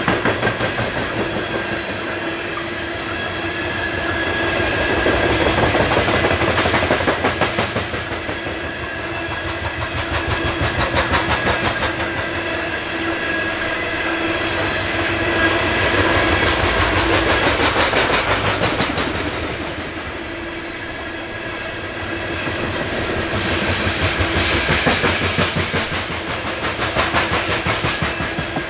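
Coal train of hopper cars rolling past: steady clickety-clack of wheels over the rail joints over a continuous rumble, swelling and easing every few seconds, with a faint steady whine running through it.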